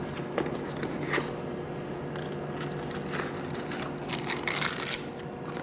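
Product box being opened by hand and its packaging handled: scattered short scrapes and rustles, with a longer run of rustling near the end.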